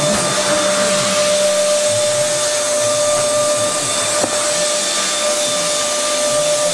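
Steady running machinery in a shop: a constant whine over an even, airy hiss, like a blower or vacuum unit. A small click about four seconds in.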